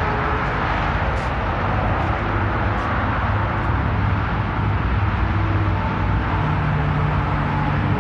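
Steady outdoor rumble with a low hum underneath; a second, slightly higher steady hum joins about six and a half seconds in.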